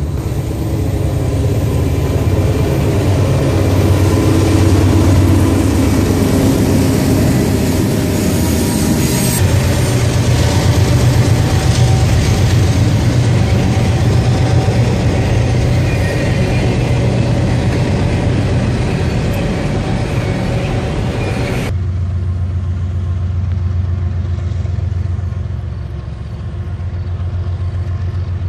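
Diesel freight locomotives passing close, engines running under load, with the steady rolling clatter of double-stack container cars on the rails. About 22 seconds in the sound changes abruptly to the lower engine rumble of another diesel freight locomotive approaching.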